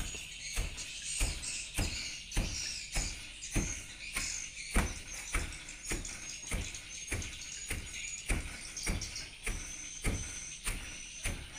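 Wooden ironwood pestle pounding cassava leaves in a used plastic 5-litre jerrycan: dull, evenly spaced thumps, a little under two a second. Crickets chirp steadily behind it.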